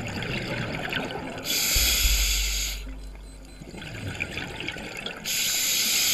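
Scuba diver breathing through a regulator underwater: two loud rushing breaths about four seconds apart, each lasting a second or so, the first with a deep bubbling rumble. A faint fizzing crackle of bubbles and water runs between them.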